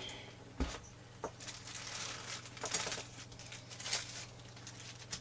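Packaging and small parts being handled: light rustling of plastic and cardboard with a few scattered clicks and knocks, the sharpest a dull knock a little over half a second in.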